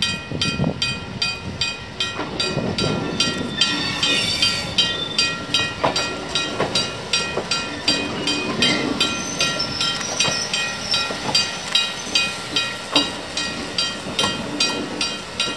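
English Electric electric multiple unit Dm 27 passing slowly, its wheels clicking over the rail joints. A rapid steady ringing of about three strokes a second goes on throughout.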